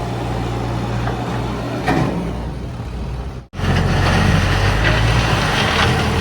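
Backhoe loader's diesel engine running under load, with clattering and scraping from the bucket handling crushed-stone wet mix in the second half. The sound cuts out for an instant a little past halfway.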